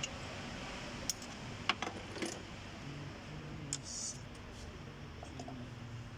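A few light metallic clinks and taps of metal parts being handled, five or so spread over the first four seconds, over a faint steady low hum.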